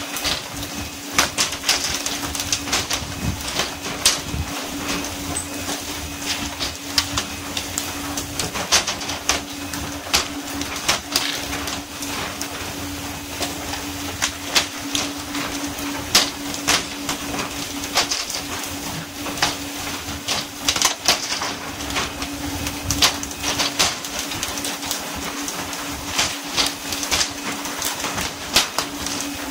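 Skipjack tuna being landed by pole and line: fish slap onto the deck and flap in irregular rapid patters, with many sharp knocks all through. Under them run the steady hum of the boat's engine and the hiss of water spray.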